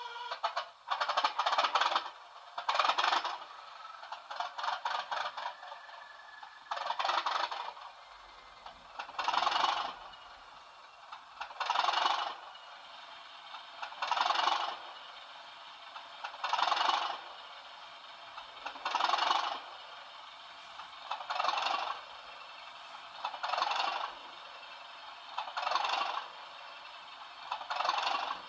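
Sound decoder of a Bachmann Class 37 model diesel locomotive playing its long start-up sequence through a twin iPhone speaker. A clattering rattle repeats about every two and a half seconds over a faint steady hum, with almost no bass.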